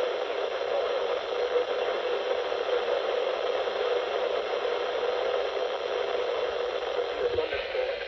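Weather alert radio's speaker hissing with heavy static from a weak NOAA Weather Radio signal, the broadcast of the tornado warning largely buried in the noise.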